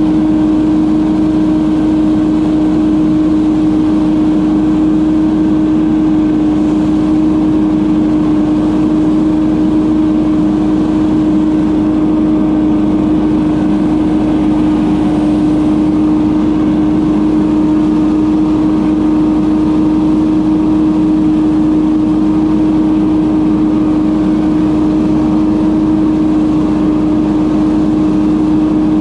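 Leaf blower running loud and steady, a constant engine-and-fan drone with one strong hum and a rush of air, no change in speed.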